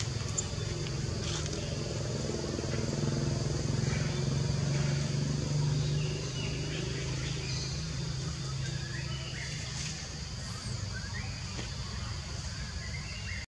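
A motor engine running steadily as a low hum that weakens after about six seconds, over a steady high-pitched hiss and a few faint short chirps.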